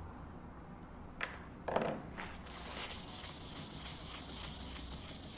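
Paper towel rubbed in quick back-and-forth strokes over an oiled sharpening stone, wiping off the oil and steel slurry, several strokes a second. The strokes start about two seconds in, just after a short rustle that is the loudest moment.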